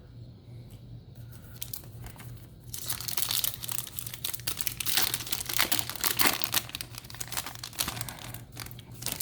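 Foil booster pack wrapper being handled, crinkling and crumpling loudly from about three seconds in, after a quieter start with a few small rustles.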